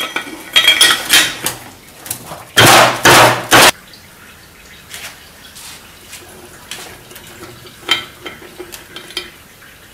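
Metal hand tools clinking and clattering against a cylinder head and a metal workbench as a ratchet and socket are worked and set down. The loudest is a dense rattle lasting about a second, some three seconds in, with a few lighter clinks later.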